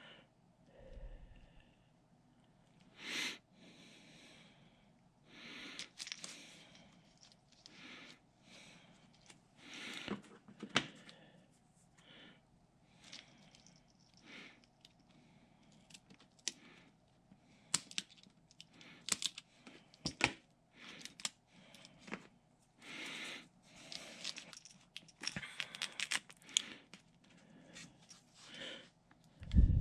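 Irregular rustling, crinkling and light clicks of a flexible stencil sheet being handled and fitted around a lure, with a heavier thump near the end.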